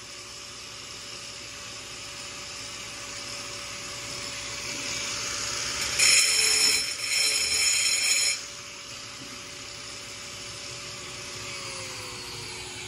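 Angle grinder with a diamond blade: it spins free with a steady whine, then cuts a groove into a stone countertop for about two seconds a little past the middle, which is much louder. Near the end the whine drops in pitch as the grinder winds down.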